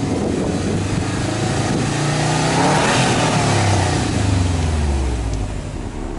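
Exhaust note of a Subaru Impreza WRX STI A-Line's 2.5-litre turbocharged flat-four (EJ25) at the quad tailpipes as it is revved in neutral. The revs climb steadily for about three seconds, then fall back to idle over the next two and a half.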